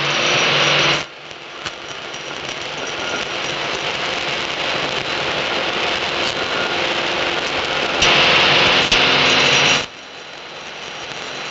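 Light aircraft engine and propeller running, heard from the cockpit, slowly getting louder as power comes up for the takeoff roll on a grass strip. A louder, brighter stretch in the first second and again for about two seconds near the end each cuts off suddenly.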